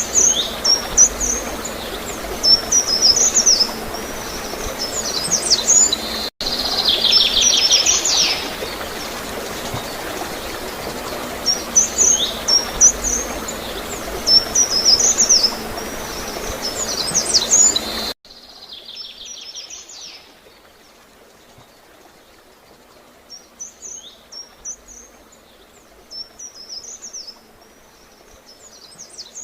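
Small songbird calling in short, high twittering phrases every couple of seconds, some with a buzzy trill, over a steady background of gurgling, flowing water. The whole background drops abruptly to a much quieter level about 18 seconds in, after a brief dropout at about 6 seconds.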